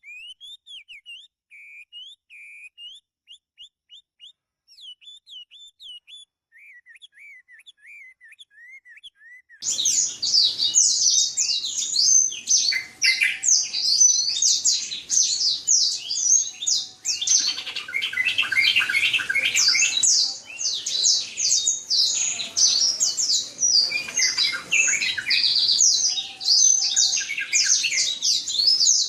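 Black-throated canary (blackthroat) singing. For about the first nine seconds there are quiet, scattered chirps and short trills; then it suddenly switches to a loud, fast, unbroken song of rapid chirps and trills.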